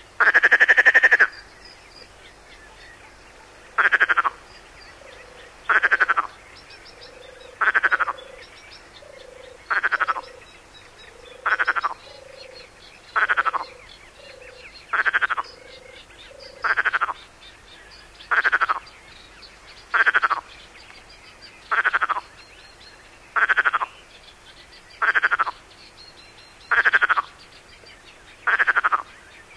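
Perez's frog (Pelophylax perezi) calling: a short rasping, rattling croak, like air rolled in the throat, repeated about every 1.7 seconds, the first one longer. Fainter, lower croaks come between the calls through the middle.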